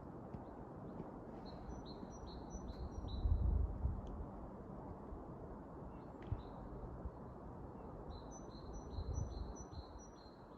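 A small songbird singing two short phrases of about five quick, repeated high notes each, over a steady low rumble of distant road traffic. A louder low, muffled thump comes about three seconds in.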